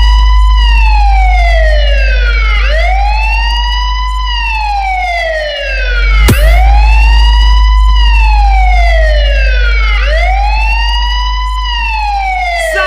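Electronic siren effect in a DJ sound-check track, wailing up quickly and sliding slowly back down about three and a half times, over a loud sustained deep sub-bass drone that drops out briefly near the middle.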